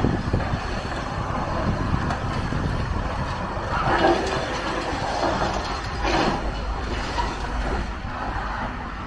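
Demolition machinery working: a steady low diesel rumble, with rubble crunching and scraping that swells briefly about four seconds in and again about six seconds in.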